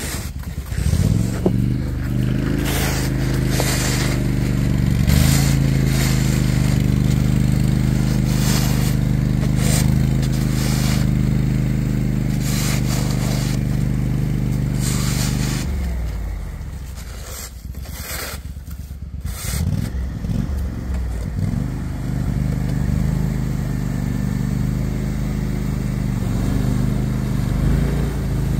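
Small amphibious ATV engine running steadily as the machine drives through the water. The engine eases off for a few seconds past the middle, then picks up again. Scraping noises come and go over it.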